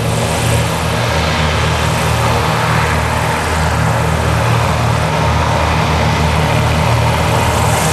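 Passenger hovercraft coming on at speed: a steady low drone from its engines and twin ducted propellers, over a broad rushing noise of air and spray blown out from under the skirt.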